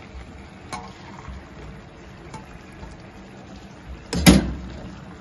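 Hot fish stock being poured into a paella pan of simmering rice, a steady liquid hiss. About four seconds in comes one short, louder splash as a glass of stock is tipped in.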